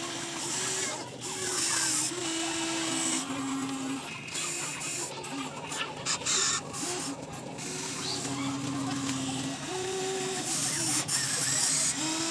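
Small electric motors of a Huina RC toy excavator whining as it digs and swings, the pitch stepping up and down as different movements start and stop. Gravel crunches and rattles in the bucket.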